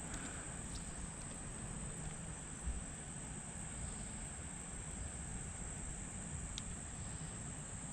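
Summer insects trilling steadily in one unbroken high note, over a low rumble. A single soft low thump about two and a half seconds in.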